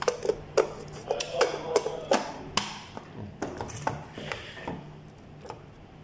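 Plastic coffee grinder housing handled and turned over, giving a run of irregular sharp clicks and knocks, closely spaced for about the first three seconds and then thinning out.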